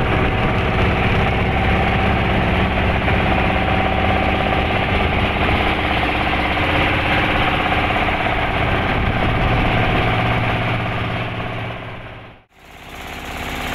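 Wooden boat's engine running steadily while underway on a lake, with a steady hiss over its hum. The sound fades out briefly near the end.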